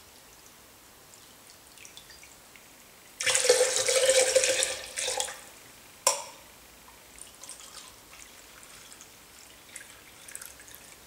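Whiskey poured from a measuring jug into a blender jug of cream, a splashing pour of about two seconds, followed by a single sharp knock. Then faint trickling as more whiskey is poured from the bottle into the measuring jug.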